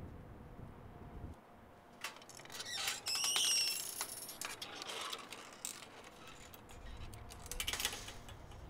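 A metal gate being worked: a run of latch clicks and rattles, then a short high-pitched hinge squeal as it swings, the loudest moment, with another burst of clicks near the end.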